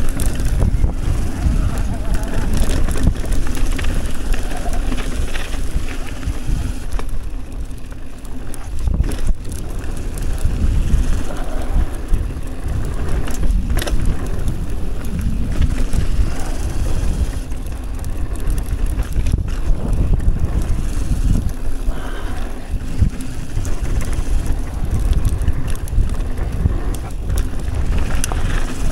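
Wind buffeting the action camera's microphone over the rumble of mountain bike tyres on a dirt trail during a descent, with a few sharp knocks from the bike over bumps.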